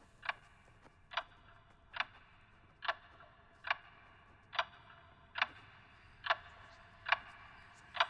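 Pendulum wall clock ticking steadily, a short click a little faster than once a second.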